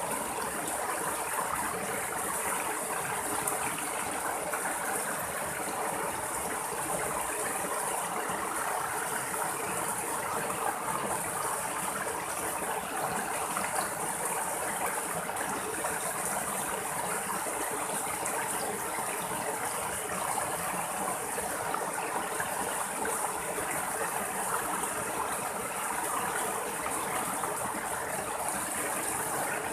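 Small rocky stream running steadily, with water splashing down two little cascades between boulders into shallow pools. A steady high-pitched hiss sits above the water sound.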